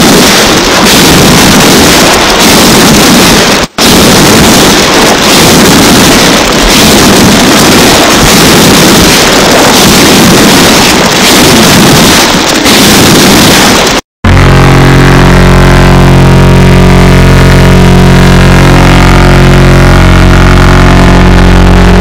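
Extremely loud, distorted sound effects: a harsh noisy blast with a brief dropout about four seconds in, then after a sudden cut about fourteen seconds in, a steady drone of several held tones.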